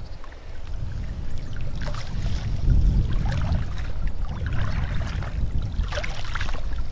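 Wind buffeting the microphone outdoors, a low uneven rumble, with a few faint brief rustles.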